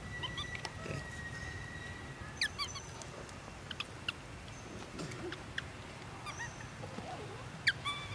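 Baby macaque crying in short, high-pitched squeaks that come in small clusters, the loudest near the end.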